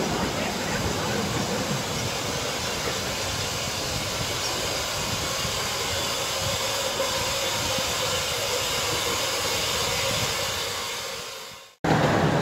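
Steady hiss of steam from a 15-inch gauge RH&DR steam locomotive standing at the platform. Near the end the sound fades and drops out briefly, then comes back louder.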